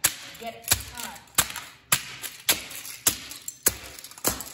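Black high-heeled ankle boots stomping repeatedly on old plastic and die-cast toy cars on concrete, the toy car bodies cracking and breaking apart: about eight sharp stomps, a little under two a second.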